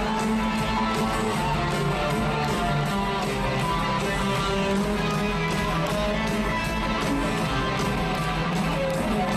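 Live rock band playing an instrumental stretch: strummed electric guitar over bass and a steady drum beat, heard from among the audience in a large arena.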